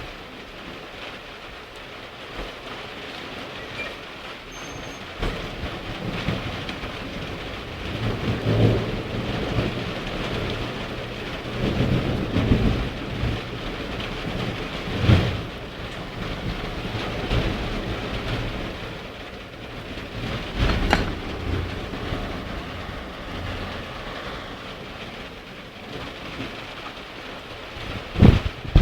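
Steady rain falling, with thunder rumbling several times; the sharpest clap comes about halfway through, and a few sharp bangs come right at the end.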